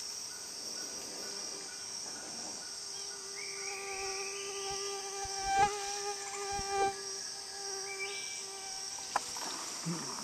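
Mosquitoes whining close to the microphone, a steady pitched buzz that swells about halfway through, over a continuous high-pitched chorus of rainforest insects. A couple of soft knocks from the hands holding the camera come near the middle.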